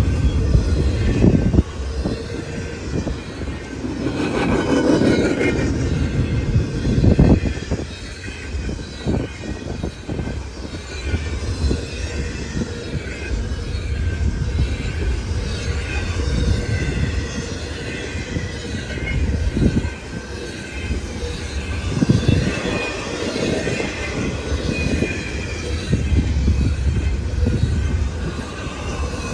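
Double-stack intermodal container well cars rolling past, a steady rumble and clatter of steel wheels on rail that swells and eases as the cars go by, with a faint high wheel squeal over it.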